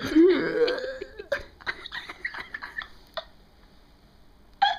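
A girl's long burp that wavers in pitch, bringing up air swallowed with soda fizz, followed by breathy giggling and small clicks that fade to quiet; a brief sharp sound near the end.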